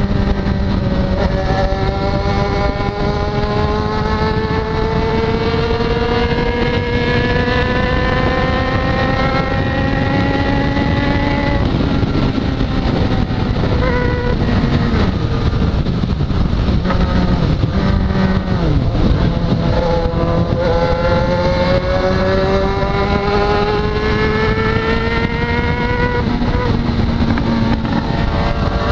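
Yamaha XJ6's inline-four engine pulling slowly up through the revs on a steady throttle, dropping back about twelve seconds in and again around nineteen seconds, then climbing again. Steady wind and road noise run underneath.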